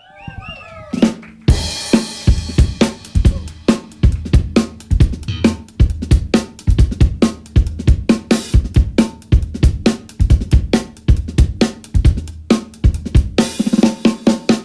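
A live band's drum kit playing a steady funk groove on kick, snare and hi-hat, opening the tune. A cymbal wash near the end leads into the full band.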